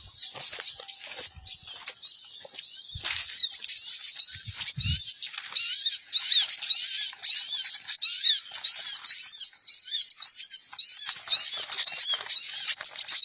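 Many small birds chirping at once: a dense, unbroken run of quick high-pitched chirps, several each second, which gets busier and louder a few seconds in.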